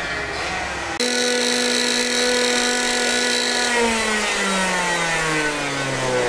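A racing kart's two-stroke engine running at high, steady revs, its pitch then falling steadily over the last two or three seconds. A more distant engine hum comes before an abrupt cut about a second in.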